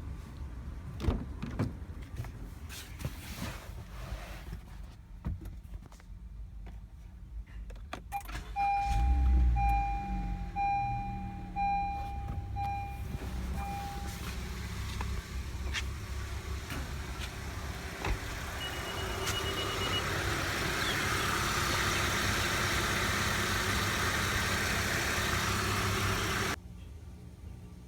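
Honda Civic's engine starting and then running steadily at idle. A chime beeps about five times as it starts, and a brief higher beep comes later. A broad hiss builds over the last several seconds before the sound cuts off suddenly.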